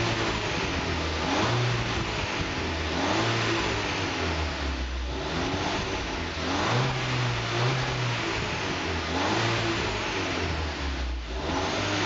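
VW Golf 6 GTI's turbocharged 2.0-litre four-cylinder heard through a custom stainless steel cat-back exhaust, blipped repeatedly while parked. The pitch rises and falls back every second or two over a steady low idle note.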